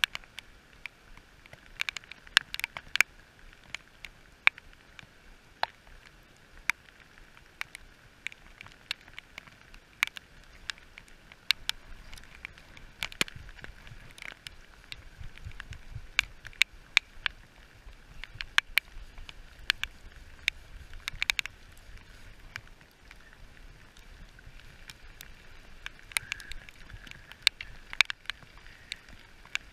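Rain falling on a river, a steady hiss, with irregular sharp taps of raindrops striking the camera housing close to the microphone.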